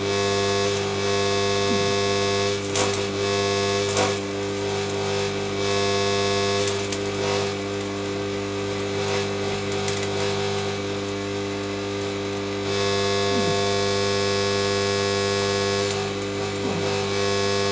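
Stick (MMA) arc welding on thin pipe with a Draper inverter welder: the arc hisses and crackles over a steady electrical hum, with a few sharp pops.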